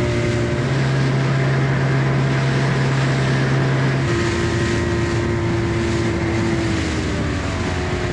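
Small boat's outboard motor running steadily at cruising speed, with water rushing past the hull and wind noise. The motor's hum shifts in pitch about four seconds in.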